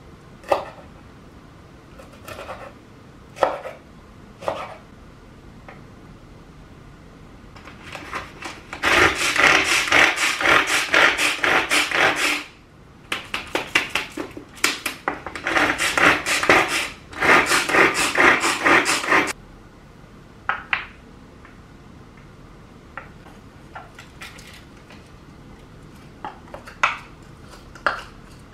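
A few separate knife strokes on a wooden cutting board, then a hand-pulled string mini food chopper worked in three long runs of rapid pulls, its blades whirring as they mince red chilies and green peppers. Light plastic clicks from handling the chopper's lid and bowl near the end.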